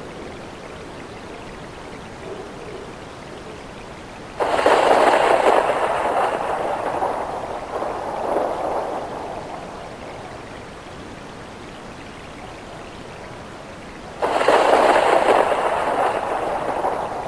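Rain-and-thunder sound effect: a steady hiss of rain, with a loud roll of thunder breaking in suddenly about four seconds in and again near the end, each one surging a second time and fading over several seconds.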